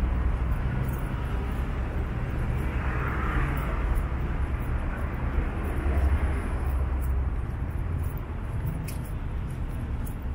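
Road traffic passing on a city street: a steady low rumble of engines and tyres that swells about three seconds in and again around six seconds as vehicles go by.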